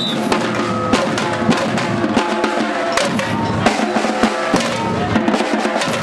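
Street percussion band playing a steady rhythm on snare drums, bass drums and hand-held percussion, with dense, rapid drum hits.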